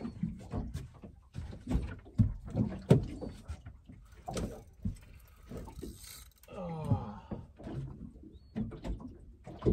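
Irregular knocks and clatter of a fishing rod being pulled from its holder on a boat and worked against a biting fish, with a brief wordless voice sound about seven seconds in.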